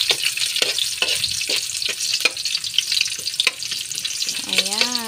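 Garlic and sliced onion sautéing in hot oil in a wok: a steady sizzle, with a metal spatula scraping and clicking against the pan again and again as it stirs.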